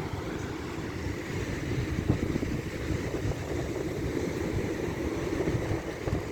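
Wind buffeting the microphone over the wash of sea surf: a steady, low rumbling noise.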